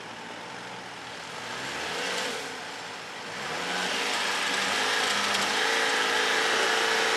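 Off-road 4x4's engine revving under load as it climbs out of a muddy pit: a short rev about two seconds in, then a longer, louder pull from about three and a half seconds that holds steady.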